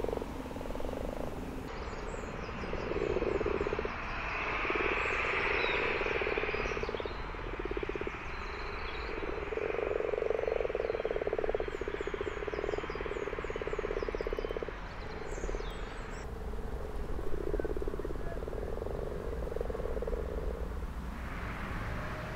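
Frogs croaking: a long run of pulsed croaks in bursts of a second or two, one after another, with faint high bird chirps in the background for much of it.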